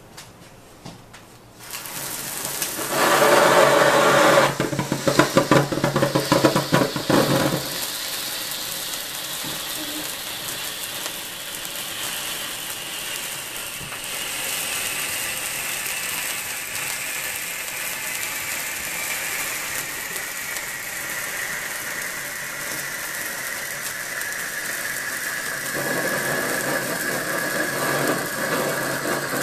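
A sparkler fountain candle catching light and spraying sparks. It crackles loudly for the first few seconds, then settles into a steady fizzing hiss that slowly drops in pitch as it burns.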